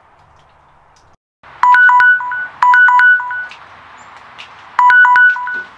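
Smartphone countdown-timer alarm going off when the 30-minute timer runs out: loud groups of short electronic beeps at set pitches repeating about once a second, starting about a second and a half in, with a short pause about two thirds of the way through.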